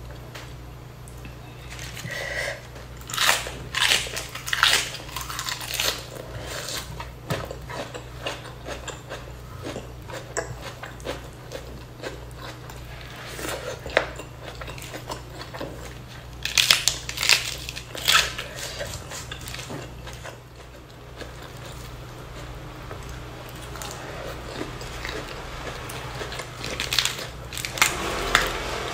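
Close-miked chewing and biting of spicy shredded duck meat, with sharp crunches coming in irregular clusters. Near the end, crisp lettuce leaves crinkle as they are handled. A steady low hum runs underneath.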